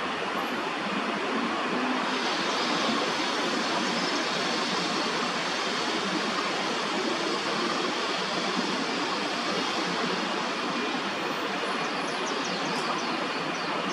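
Steady, even outdoor background din of a city park, with a few quick, high bird chirps near the end.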